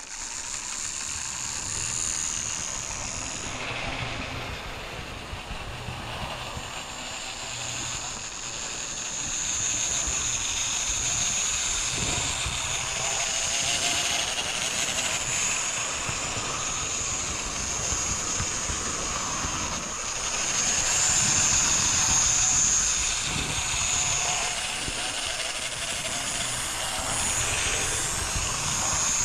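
Roco HO-scale model BR 80 tank locomotive running on its track. Its small electric motor gives a steady high whine over the rolling noise of the train, a little louder about two-thirds of the way through.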